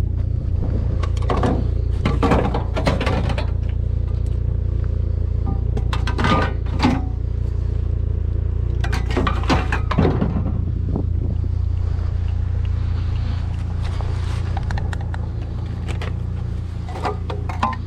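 Vehicle running with a steady low engine and road rumble, broken every few seconds by short rattling scrapes.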